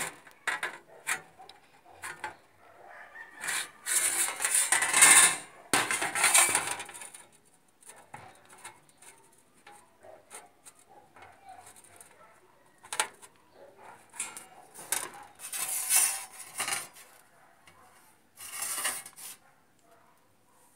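Hand tin snips cutting thin painted galvanized steel sheet: runs of crunching, scraping cuts with the sheet rattling and clicking between them. The longest cutting runs come about four to seven seconds in, then again later, ending in a shorter run near the end.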